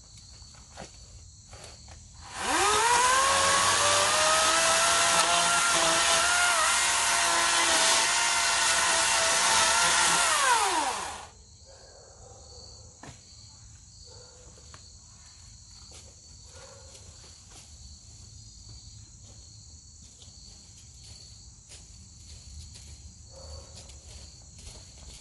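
EGO 56V 16-inch brushless battery chainsaw spinning up quickly, running at a steady high-pitched whine for about nine seconds, then winding down and stopping.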